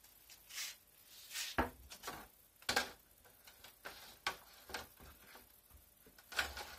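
Short, irregular knocks and crinkles from a large plastic bottle of cooking oil being pulled out of a cupboard and handled, about six separate sounds spread a second or so apart.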